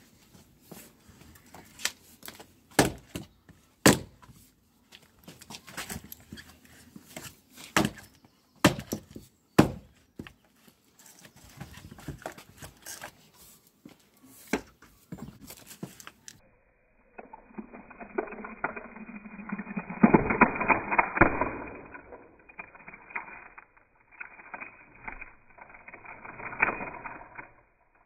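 Splitting maul striking a cypress firewood round on a chopping block: sharp blows and cracks of wood splitting, several times in the first half. In the second half the sound turns muffled and dull, with a dense run of cracking and knocking.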